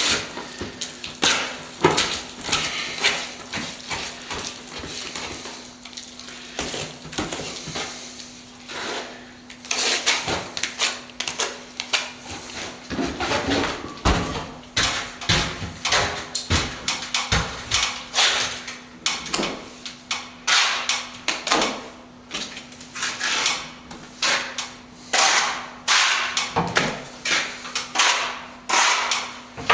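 Steel plastering trowel working wet render: many irregular scrapes and slaps of trowel on hawk and wall, over a faint steady hum.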